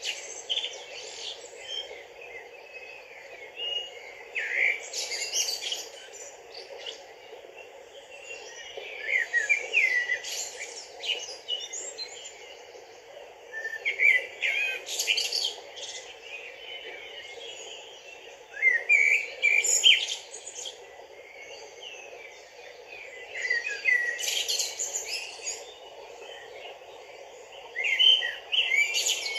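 A songbird singing short, high warbling phrases about every four to five seconds, over the steady rush of a shallow stream running over stones.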